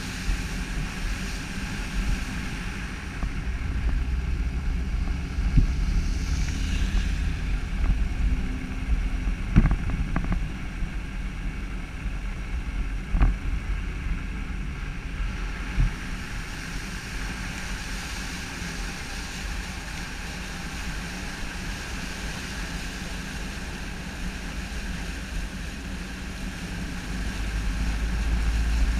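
A vehicle driving through a flooded street, its tyres throwing up spray and rushing water, over a low rumble of wind buffeting the microphone. A couple of sharp knocks come about ten and thirteen seconds in.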